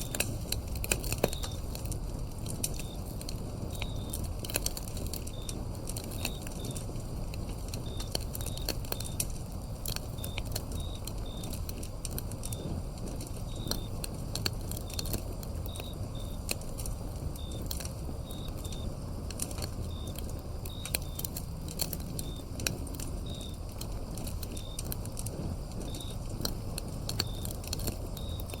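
Firewood burning with steady crackling and sharp pops over a low rumble, while crickets chirp in short high notes again and again.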